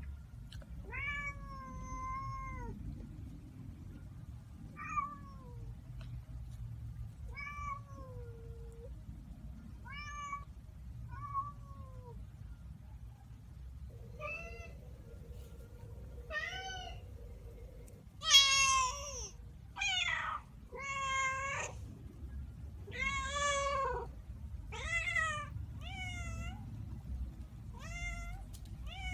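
Kitten meowing over and over, about one high-pitched meow every two seconds. The calls are short and faint at first and grow louder and longer about two-thirds of the way in.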